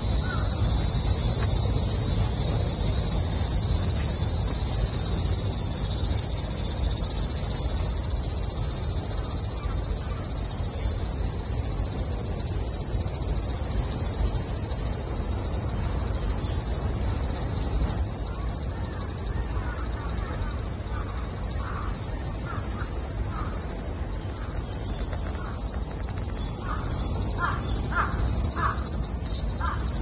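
Cicadas singing in a steady, high-pitched chorus. One cicada's call slides down in pitch and cuts off suddenly about eighteen seconds in. A bird gives several short calls in the second half.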